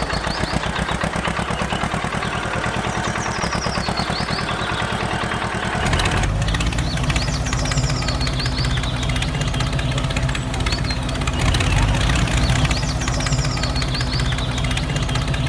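Tractor engine running with a fast, even chugging. About six seconds in it changes to a lower, steadier drone.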